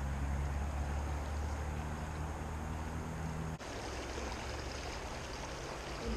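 Steady rushing of a shallow creek flowing over rocks, with a low rumble under it that cuts off abruptly about three and a half seconds in.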